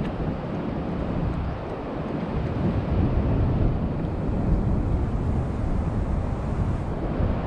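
Wind buffeting the microphone: a steady low rumble that swells a little about three seconds in.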